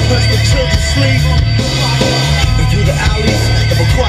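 Background music in a hip hop style, with a heavy bass line.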